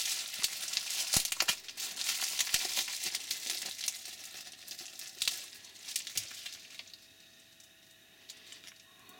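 Plastic bubble-wrap packaging crinkling and crackling as it is unwrapped from a small glass lens by hand, with many quick crackles. The crinkling thins out past the middle and goes nearly quiet near the end.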